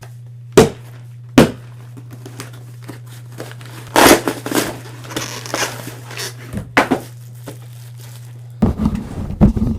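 A parcel being handled and opened: two sharp knocks in the first second and a half, then crinkling and tearing of packaging. A steady low hum runs underneath and stops near the end.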